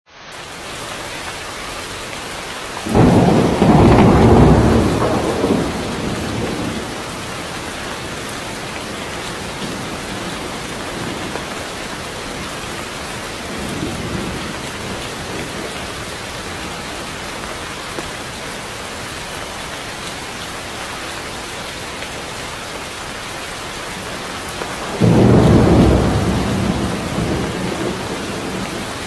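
Heavy rain falling steadily, with loud thunder that breaks suddenly about three seconds in and rolls away over a few seconds. A fainter rumble comes midway, and a second loud clap of thunder comes near the end.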